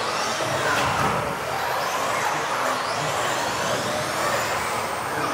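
Several 1/10-scale electric off-road RC buggies with modified-class brushless motors racing, their motors whining in high pitches that rise and fall as they accelerate and brake, with tyre noise on the hall floor. The sound carries inside a large sports hall.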